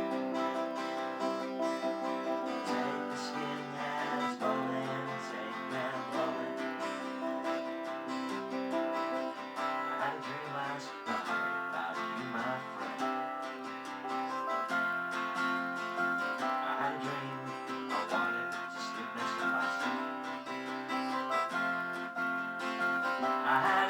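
A small band playing a song, led by strummed acoustic guitar with other plucked strings, chords changing every couple of seconds.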